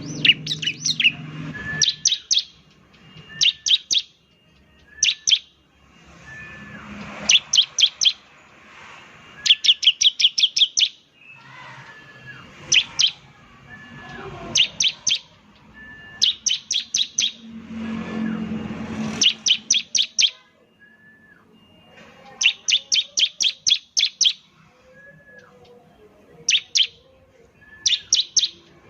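Bar-winged prinia (ciblek) singing in bursts of rapid, sharp repeated notes, from a few to about eight in each burst, every second or two.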